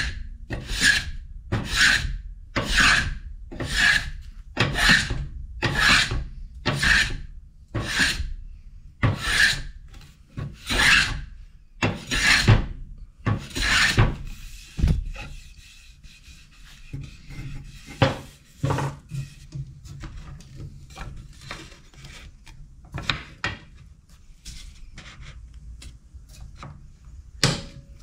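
Hand plane shaving the hard corners off a wooden bo staff to round it, in strokes about once a second for the first half, then only a few scattered, fainter strokes.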